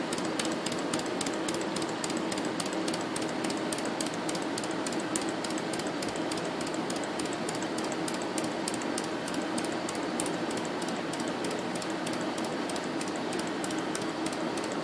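Small model stationary steam engine running at speed, its rods and flywheel turning with a rapid, even clatter of clicks over a steady hum.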